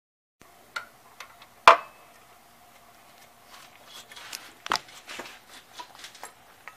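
Scattered clicks and clinks of tools and metal parts being handled under a car, with a sharp knock about two seconds in and another near five seconds, and some rustling in between.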